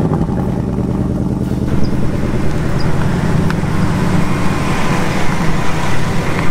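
Ford Mustang Bullitt's 5.0-litre V8 running through its exhaust just after start-up. From about two seconds in, the car drives toward and past close by, with road noise building over the engine.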